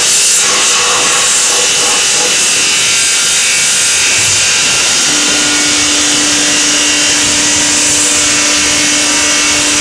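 Loud, steady machinery noise on an aluminium foundry floor, mostly a high hiss, with a steady hum that joins about halfway through.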